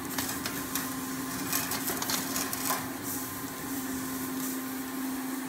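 Stainless steel stovetop percolator shifted by its handle on the top of a small portable heater, giving a few light metal clicks in the first few seconds, over a steady hum and hiss.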